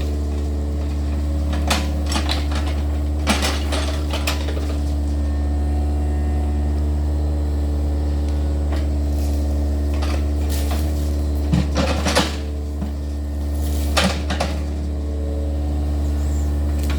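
Yanmar excavator's diesel engine running steadily, with intermittent sharp metallic clanks and knocks from the working arm and bucket as it digs out a ditch.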